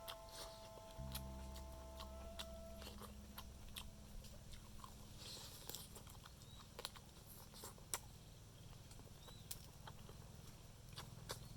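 Chewing and crunching on fried frog, with scattered crisp clicks of bites and mouth sounds. A few held tones die away about three seconds in.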